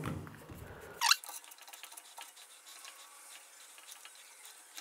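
Hands handling a cinema camera mounted on a gimbal: faint scattered clicks and rustles, with one sharper click about a second in.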